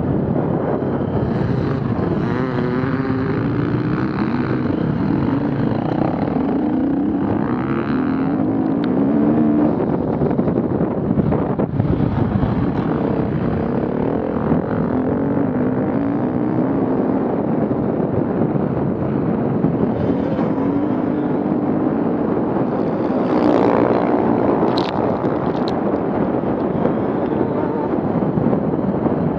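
Off-road vehicle engines running and revving, their pitch rising and falling.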